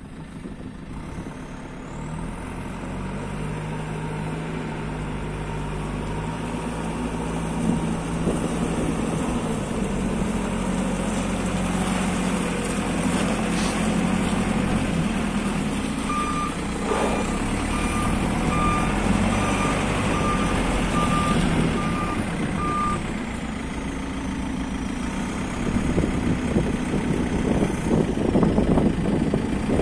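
JCB 3CX backhoe loader's diesel engine running steadily, getting louder and rougher near the end. Partway through, its reversing alarm beeps about nine times at an even pace, a little under a second apart, as the machine backs up.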